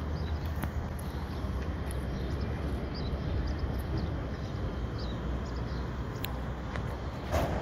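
A cat chewing dried small fish, with scattered crunching clicks and a louder crunch near the end, over a steady low rumble.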